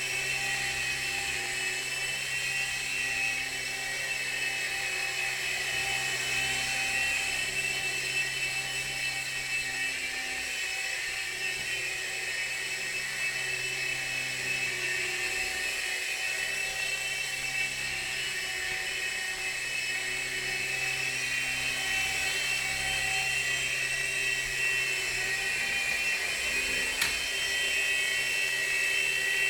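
Mini 3-channel RC helicopter's small electric motors and rotors whining steadily at a high pitch as it hovers, the pitch wavering slightly with throttle. A single short click comes near the end.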